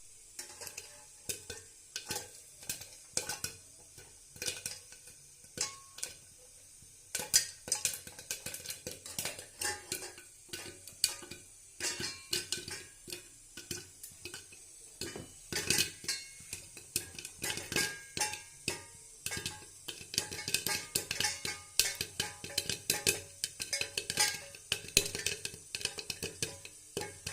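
Popcorn kernels popping in a pan: sharp, irregular pops, sparse at first, coming thicker and louder from about a quarter of the way in and densest in the second half.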